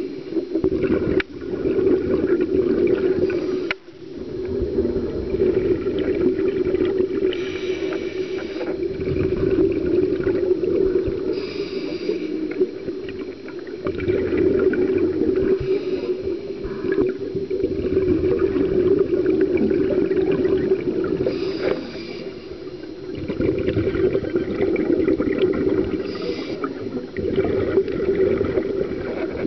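Scuba diver's regulator breathing, recorded from inside an underwater camera housing: a steady hum with a brief burst of breath and exhaled bubbles about every four to five seconds.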